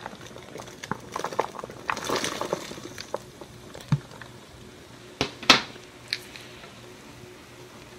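Whisk stirring a pan of liquid soup base as chopped onions are tipped in: wet splashing and small clicks, then a few sharp knocks against the pan, the loudest about five and a half seconds in.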